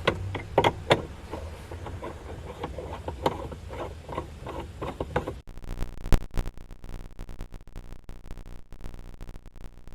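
Small clicks and knocks of a custom shift knob being handled and threaded onto a car's gear lever. About five seconds in the sound changes abruptly to a low hum with rapid ticking.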